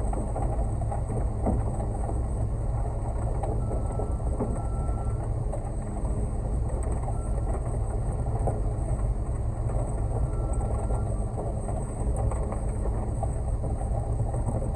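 Concrete mixer truck running steadily with its drum turning as it discharges concrete: a low engine hum under a dense, continuous mechanical rattle and grinding.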